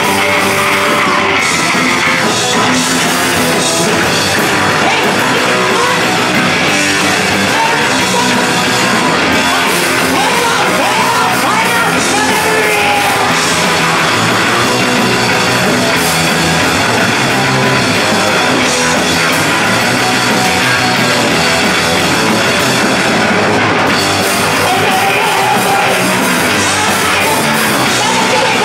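A live rock band playing loud, continuous music on electric guitars and a drum kit, with a woman singing and yelling into a microphone over it.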